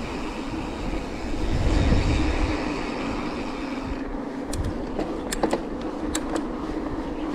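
Mountain bike riding at speed: a steady rolling drone of the tyres, with a low rumble swelling about two seconds in and a few sharp clicks and rattles from the bike in the second half.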